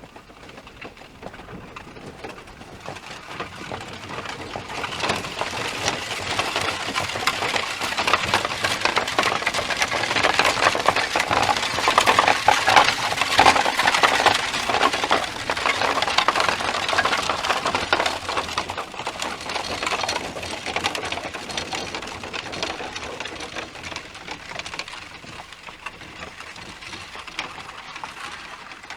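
Horse hooves clattering in a dense, rapid patter, growing louder to a peak about halfway through and then fading away, as horses pass by.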